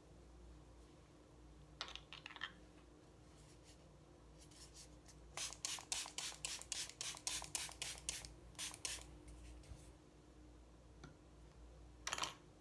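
Hand rubbing and patting against the skin of the face close to the microphone: a fast run of short scratchy strokes, about four or five a second for a few seconds, with a brief cluster before and another near the end.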